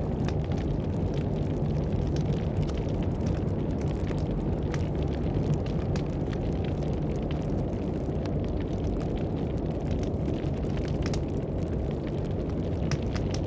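Campfire crackling: irregular sharp snaps and pops over a steady low rushing of blizzard wind.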